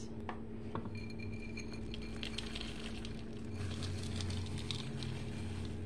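Chopped pecans poured into thick cookie dough in a mixing bowl: a patter of many small pieces falling, starting about a second in.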